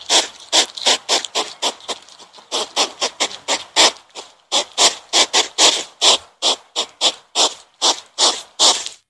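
An animal making a rapid series of short, noisy calls, about three or four a second.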